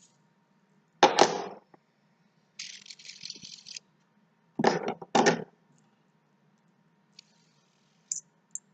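Fidget spinners being handled: several loud clattering knocks, with a brief high whirring hiss from a spinner's bearing between them and a few light clicks near the end.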